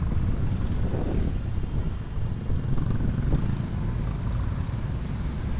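Honda Vario 125 scooter riding through slow, dense traffic of motorbikes and cars: a steady low rumble of engine, road and wind noise.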